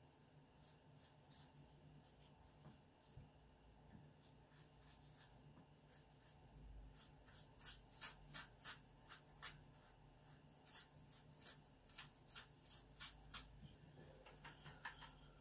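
Faint scratching of a watercolour brush drawn over heavy watercolour paper. It starts quiet, then about halfway through comes a run of short quick strokes, two or three a second.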